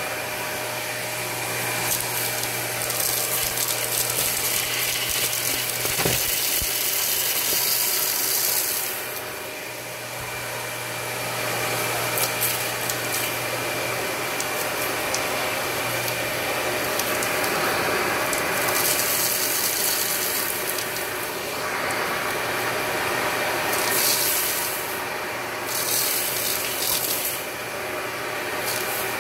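Dyson Ball Multifloor vacuum running steadily through its hose wand, with a rough crunching rattle as rice, candy and rhinestones are sucked off the carpet. The rattle swells and eases as the wand sweeps back and forth.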